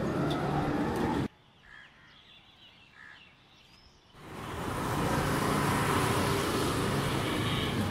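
Motor vehicle and street noise that cuts off abruptly about a second in, leaving a near-quiet gap with two faint chirps. Then the engines of a motor scooter and a motorcycle fade in and run steadily.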